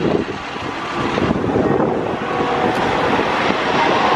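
Wind buffeting the microphone over the running rumble of a Great Coasters International wooden roller coaster train going down its first drop.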